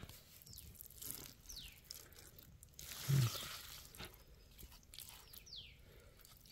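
Hands scraping soil and rustling banana leaves with soft crunching while uncovering buried fermented rice, with a louder rustle about three seconds in.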